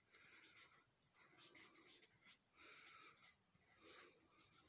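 Faint, irregular scratching strokes of a pen drawing and writing on a sketch.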